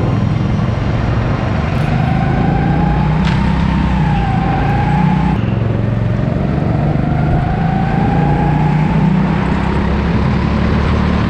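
Onboard sound of an electric indoor go-kart at speed: a steady low rumble of tyres and running gear under a thin motor whine. The whine rises in pitch twice as the kart accelerates, cutting off abruptly in between.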